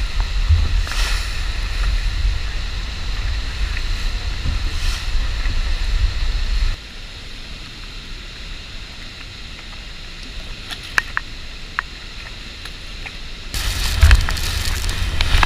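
Wind buffeting the microphone over the rushing water of a speedboat running on the river. About seven seconds in it drops to a quieter hiss with a few sharp ticks, and the loud rumbling rush returns near the end as the boat nears the falls' spray.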